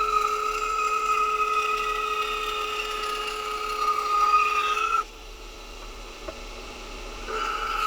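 A small power tool running with a steady whine, cutting off about five seconds in and starting again about two seconds later.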